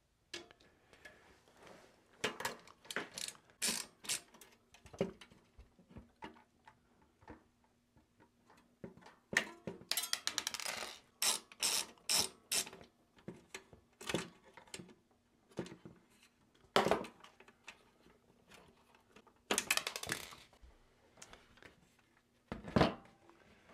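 A stubby screwdriver backing out the screws that hold the fan brackets inside a Synology DS920+ NAS: bursts of rapid clicking, with scattered sharper metal clicks and knocks as the brackets and chassis are handled.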